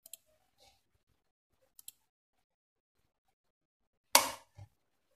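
Two faint computer-mouse clicks, then about four seconds in a brief loud scrape and a soft knock as hands handle a universal chip programmer with a ZIF socket.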